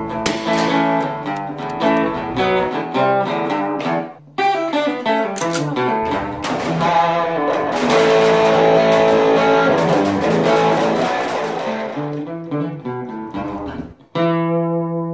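Guitar music with strummed chords. It breaks off briefly about four seconds in, grows fuller through the middle and ends on a held chord that fades.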